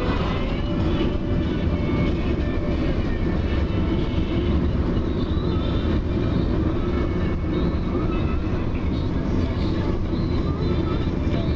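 Road and engine noise inside a moving car's cabin: a steady low rumble with tyre hiss.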